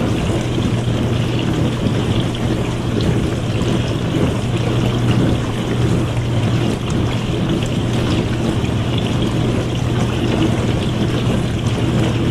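Dishwasher running: water splashing inside the tub over a steady low motor hum, unbroken and even.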